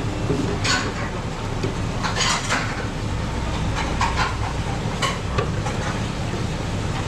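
Metal ladle and tongs clinking and scraping against a stainless-steel soup pot as broth and fish balls are scooped into a bowl, a handful of separate clinks over a steady low hum.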